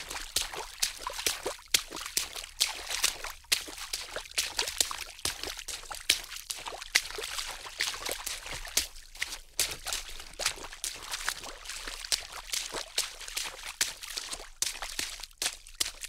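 Water splashing: an unbroken run of irregular sharp splashes, several a second.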